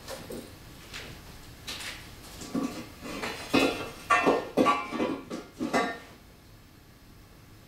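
Metal tools clanking against metal in a car's engine bay: about half a dozen sharp clanks, each with a short metallic ring, bunched together about halfway through.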